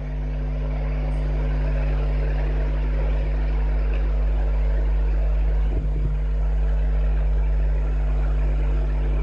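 A steady low machine hum made of a few fixed, even tones. It swells a little over the first couple of seconds, then holds level without change.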